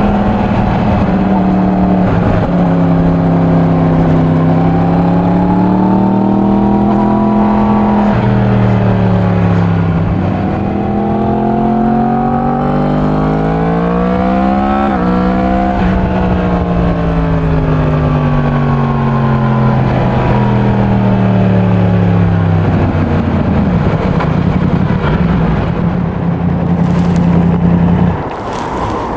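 Yamaha MT-10's crossplane inline-four on its stock exhaust, ridden gently while being run in: the engine note climbs, drops abruptly at a shift about eight seconds in and again around the middle, then falls steadily as the bike slows and holds a steady note before dying away near the end.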